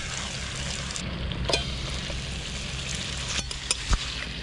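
Marinated chicken drumsticks sizzling in hot oil with browned onions in a steel kadai, with a few sharp clicks as a metal spatula knocks against the pan.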